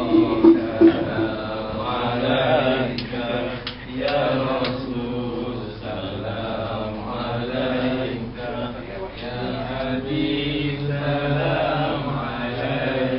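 Male voices chanting selawat, the Arabic blessings on the Prophet Muhammad, as one continuous melodic chant over a microphone.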